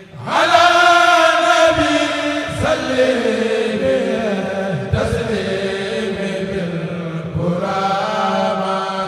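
A Mouride kourel choir chanting a khassida in Arabic, in long drawn-out phrases with sliding, held notes; a new phrase begins about every two and a half seconds.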